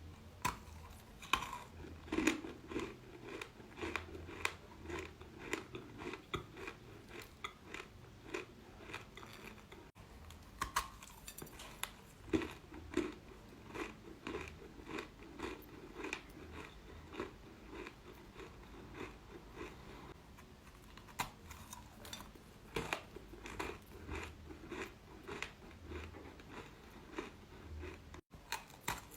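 A person chewing super crunchy chalk: a continuous run of sharp crunches, about two a second.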